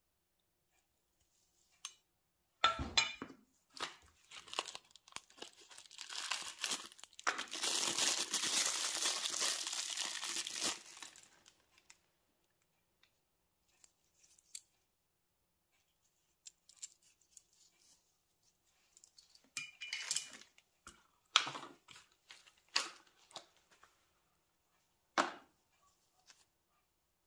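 Packaging crinkling and tearing: a sharp knock about three seconds in, then a long continuous crinkle from about six to eleven seconds. Later come scattered light clicks and taps as metal crankshaft bearings are handled in gloved hands.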